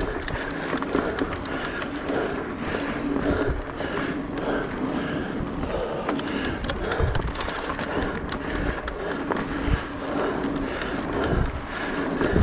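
Mountain bike ridden along a dirt singletrack: knobby tyres rolling over dirt and dry leaves, with the bike rattling and clicking over bumps.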